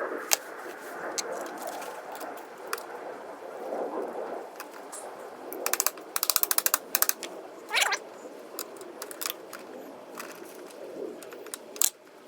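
Hand work on a storm door closer: scattered small metal clicks and knocks, with a quick run of ratchet-like clicks about six seconds in.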